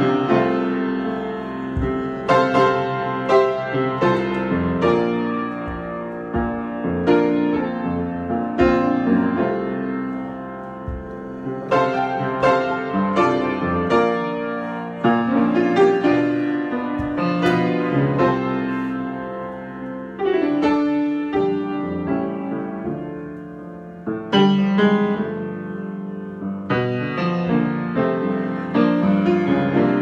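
Solo grand piano improvisation: struck chords and melody notes ringing into each other, with quieter, thinner passages about ten and twenty-three seconds in before it builds again.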